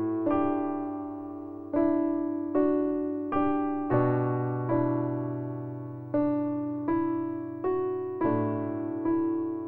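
Background piano music: a slow melody of single struck notes, roughly one a second, each fading away, over low bass notes.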